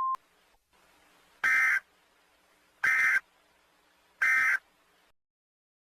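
Emergency Alert System end-of-message signal: three short digital data bursts, evenly spaced about a second and a half apart, after a steady alert tone cuts off just at the start.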